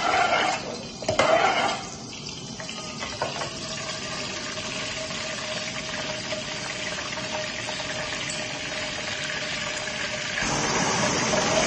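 Gas stove burner running on high flame under a wok of cooking oil, a steady even hiss.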